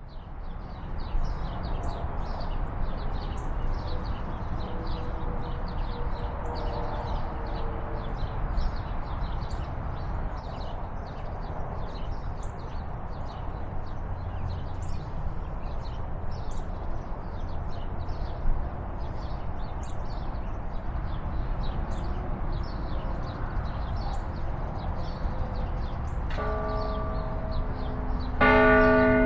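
Open-air ambience of a steady low rumble with many short high chirps. Near the end, distant church bells start ringing, several pitches at once, growing louder in the last second.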